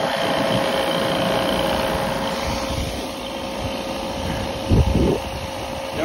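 Refrigerant recovery machine running steadily with a held tone, pumping refrigerant out of an old air-conditioning system into a recovery tank. A short low thump about five seconds in.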